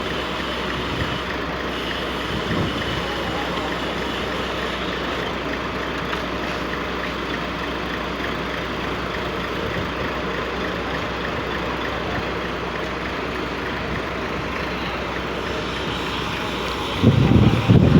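Steady roadside traffic noise, with a louder low rumble about a second before the end.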